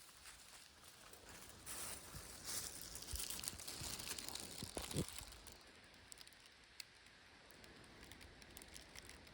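Faint rustling and crackling of leaves and twigs on the forest floor, with a few small snaps. It grows louder for a few seconds in the first half, then settles to a softer rustle.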